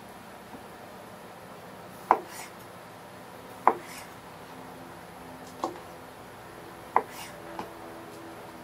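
Kitchen knife slicing cherry tomatoes on a cutting board: five sharp knocks of the blade meeting the board, spaced a second or two apart, over a low steady background hum.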